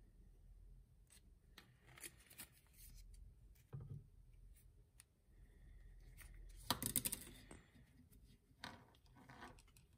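Faint handling sounds of PTFE thread seal tape being wound onto a brass threaded fitting: small clicks and short rustles, with a louder rustle about seven seconds in as the tape is pulled out and stretched.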